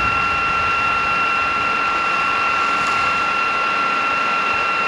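A steady high-pitched tone holding one pitch without a break, over a constant rushing noise at the scene of a warehouse fire.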